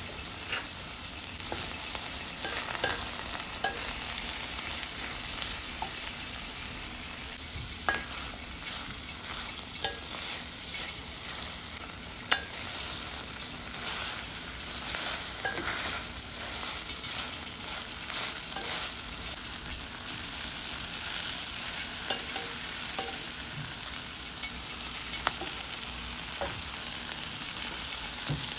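Sliced yellow onions frying in olive oil and butter in a stainless steel pot, a steady sizzle, stirred with a wooden spatula that scrapes and taps against the pot now and then. The onions are cooking down toward caramelization.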